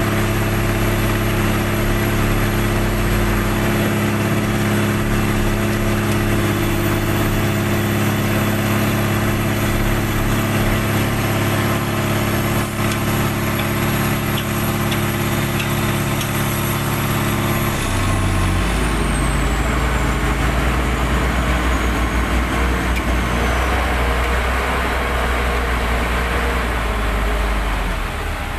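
HOWO dump truck's diesel engine running at raised revs, as is done to drive the hydraulic hoist that lifts the tipper bed. About 18 seconds in the revs drop and it settles to a lower, steady idle, while a faint high whine slides down and fades.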